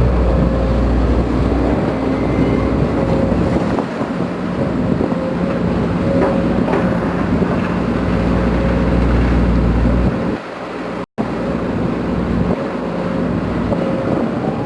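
Case CX210B excavator running, its diesel engine and hydraulic main pump giving a steady rumble with a constant whine over it; the rumble eases and comes back a few times as the load changes, and the sound cuts out for an instant about two-thirds of the way through. The pump noise is the roaring that the mechanic suspects is a main pump fault behind the machine's loss of power.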